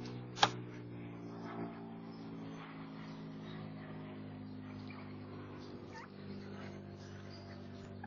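A steady low hum with a sharp click about half a second in and a few faint, short bird chirps.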